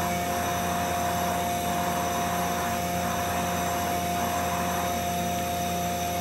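Powered-up Mazak Integrex 300-IIIS CNC mill-turn lathe giving a steady machine hum with a constant whine over it.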